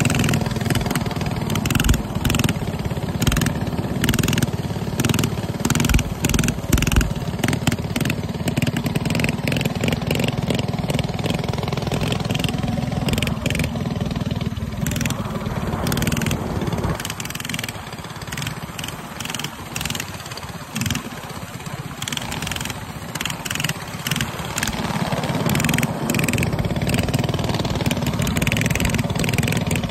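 Small mini bike engines running as the bikes ride along, with uneven wind buffeting on the microphone. The engine noise drops for a stretch past the middle and then picks up again.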